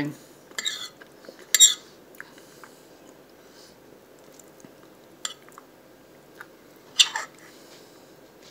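A metal fork clinking and scraping against a plate as food is cut and picked up: four sharp strokes, the loudest about a second and a half in, with a few faint ticks and quiet chewing between.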